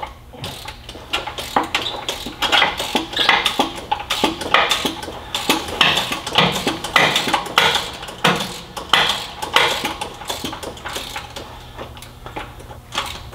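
3/8-inch drive hand ratchet on a long extension, clicking in quick repeated strokes as a starter mounting bolt is worked loose with a 5/8 twelve-point socket, with small metallic clinks of the tool against the steel around it.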